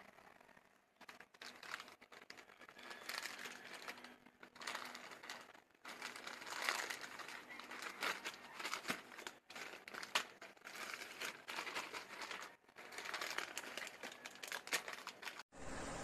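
Plastic bag crinkling as it is handled close to the microphone: irregular crackles and sharp clicks. Near the end it cuts off suddenly to a steady hiss.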